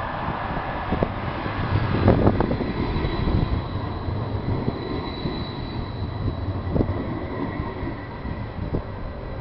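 Edinburgh Trams CAF Urbos 3 tram pulling in alongside the platform: a low running rumble with rail and wheel noise, loudest as it passes about two seconds in, then easing as it slows to a stop.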